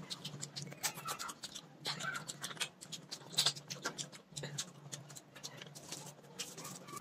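Close-miked eating sounds: wet, smacking mouth clicks of chewing a mouthful of rice, a quick irregular run of them. Fingers squish through the rice while mixing a handful.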